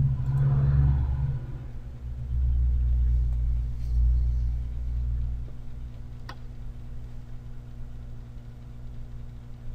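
A low rumble, loudest over the first five seconds or so and then dying down to a steady low hum, with a single sharp click about six seconds in.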